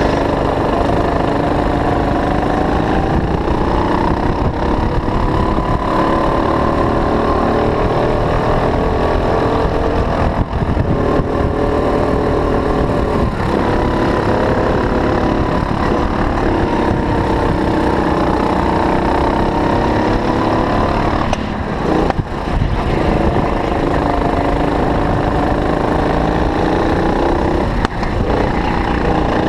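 Go-kart engine heard from onboard at racing speed, its pitch rising and falling again and again as the kart speeds up and slows through the corners, with a few brief dips in loudness.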